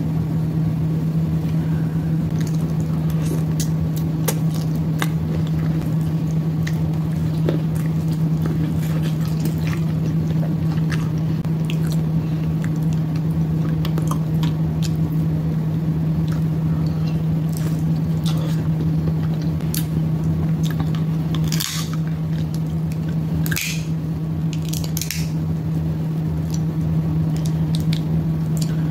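Close-mic eating sounds of a seafood boil: wet squishing, biting and chewing with scattered small clicks and smacks. There are a few louder, longer wet smacks about two-thirds of the way through. A steady low hum sits underneath.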